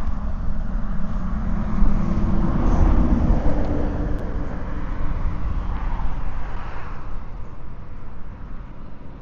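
A motor vehicle passing by, its engine and road noise rumbling louder to a peak about three seconds in and then fading away.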